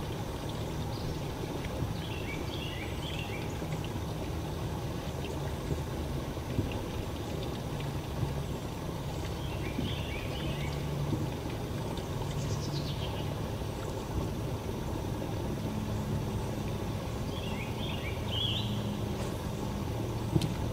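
A songbird singing a short phrase of quick high notes three times, several seconds apart, over a steady low hum.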